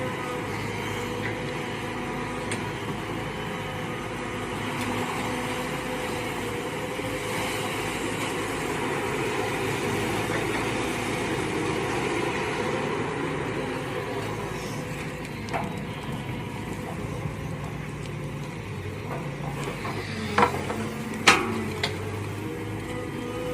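Mini excavator engine running steadily, with two sharp knocks near the end.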